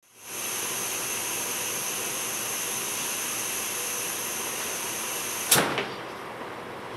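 Climbing robot's motors running with a steady high whir, several whining tones over a hiss. About five and a half seconds in there is a sharp knock and the whine cuts out.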